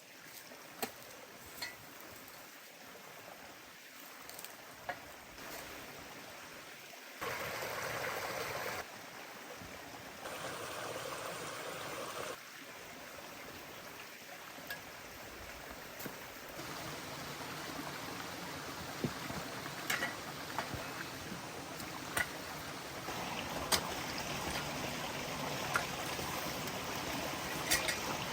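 Steady rushing noise like flowing water, such as a small stream, that jumps abruptly in level a few times. Scattered sharp clicks are heard over it, more often near the end.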